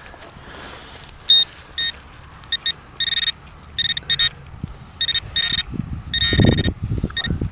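Metal-detecting pinpointer probe beeping in short bursts that come closer together and last longer as it closes in on a buried coin. Near the end the probe scrapes and thuds in the loose soil.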